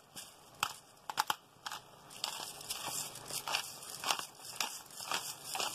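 Hand-twisted pepper mill grinding peppercorns: a string of short, dry, crunching clicks, about two a second, as the mill is turned.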